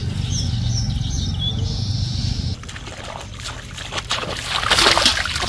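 A few bird chirps over a steady low hum, then bare feet splashing through shallow flooded paddy water, loudest near the end.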